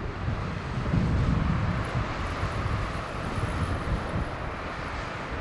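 Airbus A320 jet engines rumbling on approach to land, with wind buffeting the microphone; a faint high whine sits above the rumble for a few seconds in the middle.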